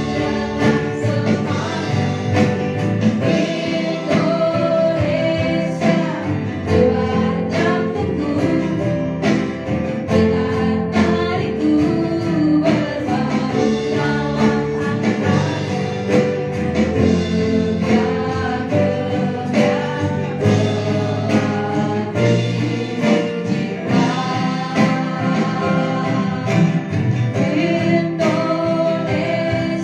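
Live band playing a song: a woman sings lead into a microphone over keyboard, electric bass, acoustic guitar and a steady drum beat.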